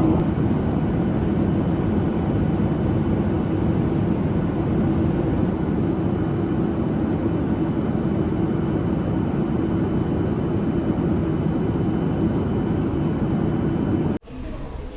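Steady drone of a vehicle heard from inside its cabin: a constant engine hum over rushing noise. It cuts off abruptly near the end.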